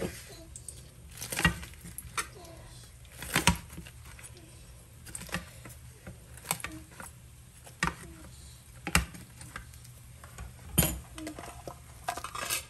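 Kitchen knife cutting through a crisp, pan-fried mughlai paratha on a plate: a series of sharp knocks and clinks, one every second or two, as the blade strikes the plate.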